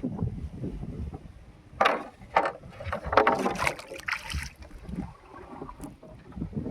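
Water splashing around a small fishing boat as it moves along, with a few short splashes about two seconds in and a longer spell of splashing a second later. Wind rumbles on the microphone throughout.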